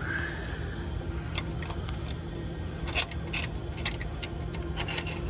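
Light metallic clicks and clinks of pliers working on the engine's timing cover, with a sharper clink about three seconds in, over a steady low hum.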